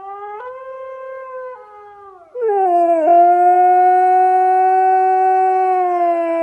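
Husky howling: a quieter howl first, then about two and a half seconds in a loud, long howl that slides down, holds steady and sags slightly near the end.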